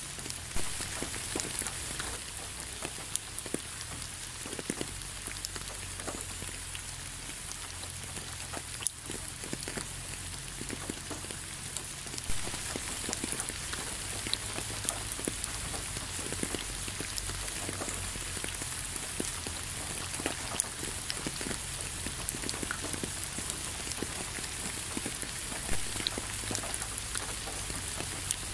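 Steady rain falling: an even hiss with many separate raindrops ticking sharply at irregular moments.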